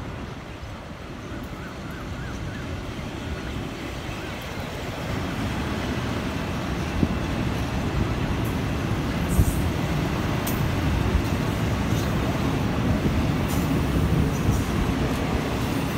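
Diesel railcar train running past: a low rumble of engines and wheels that grows louder from about a third of the way in, with a few sharp clicks in the second half.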